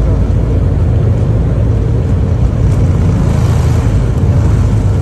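Cabin noise of an Embraer E190 rolling on the ground: a steady hum from its GE CF34 turbofan engines over a deep, even rumble, with a little more hiss about three seconds in.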